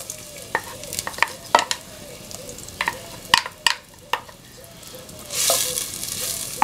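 Wooden spoon knocking and scraping against a glazed clay bowl as chopped onion is tipped into hot olive oil in an earthenware pot: a string of sharp knocks, then a burst of sizzling about five seconds in as the onion is stirred in the oil.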